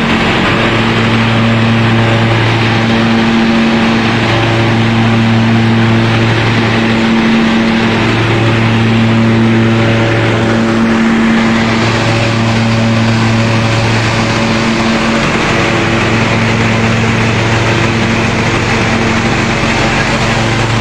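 Hazelnut threshing machine (patoz) running loud and steady: a rushing mechanical noise with a low engine-like hum that breaks off briefly about every four seconds.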